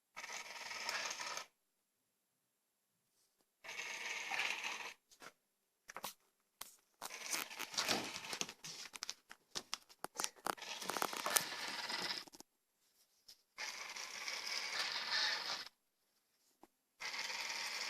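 Robot vacuum cleaner with printer-salvaged drive motors, its wheels and gears whirring in repeated bursts as it climbs over and drags electrical cables. There are sharp clicks and scrapes, thickest in the longest burst in the middle.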